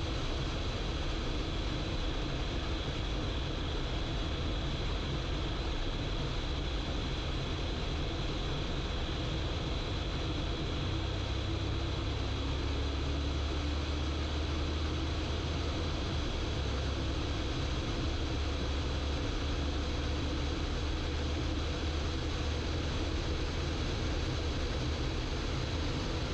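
BMW M8 Competition at autobahn speed: a steady rush of wind and road noise. A low engine rumble grows stronger from about ten seconds in as the car accelerates.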